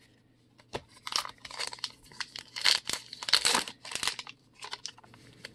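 Wrapper of a 2020 Topps Gypsy Queen baseball card pack crinkling and being torn open. After a quiet first second comes a dense run of sharp crackles and rips, loudest near the middle, then lighter crinkles near the end.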